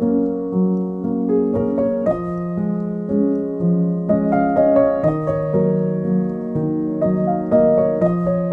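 Background piano music: a gentle melody of notes over held chords.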